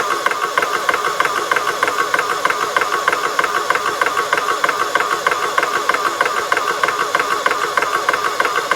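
Srdh PCP high-pressure air compressor running, with a fast, even mechanical pulse.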